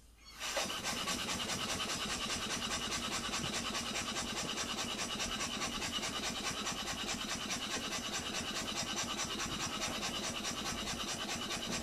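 Homemade single-cylinder slide-valve steam engine running on compressed air at 5 psi line pressure. It starts up about half a second in, then runs at a rapid, even beat of exhaust puffs.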